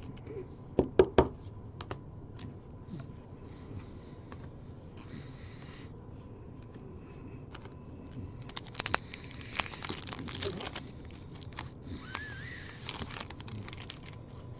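Trading-card pack wrapper being torn and crinkled, with cards handled and shuffled. A couple of sharp clicks about a second in, then longer crinkling and tearing from about eight seconds in.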